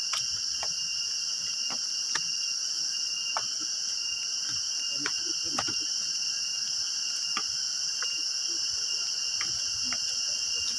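Steady, high-pitched chorus of insects droning without a break, with scattered faint clicks and taps.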